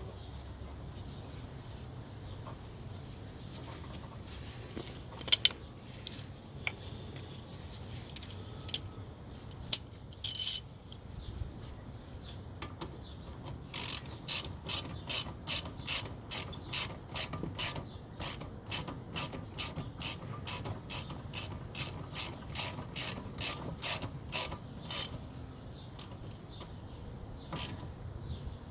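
Hand ratchet wrench clicking as a nut is run down: a few scattered clicks at first, then about halfway through a steady run of clicks at about two a second for some ten seconds.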